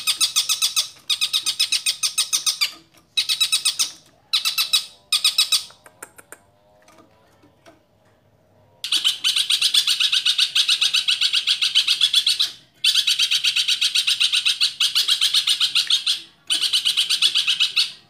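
Long-tailed shrike (cendet) chattering: rapid, evenly spaced harsh notes in bursts. A few short bursts come first, then a pause of about three seconds, then long runs broken only briefly.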